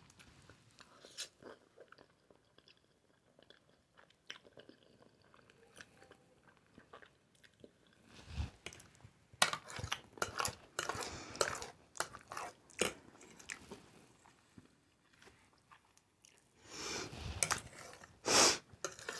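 A person chewing a mouthful of Alfredo spaghetti: wet mouth smacks and soft clicks. It is faint at first, then a dense run of smacks from about eight seconds in to about thirteen, a short pause, and louder mouth sounds again near the end.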